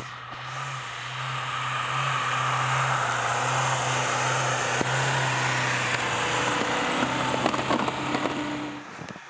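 JAC T8 pickup's 2-litre turbo-diesel engine running steadily under load while the truck ploughs through deep snow, with a hiss of snow churned up by the tyres. The sound drops away suddenly near the end.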